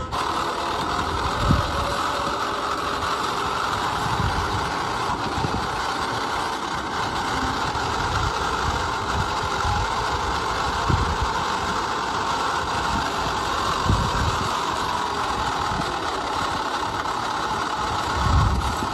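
A heavy vehicle engine runs steadily, with a few low thumps about a second in, twice in the middle and near the end.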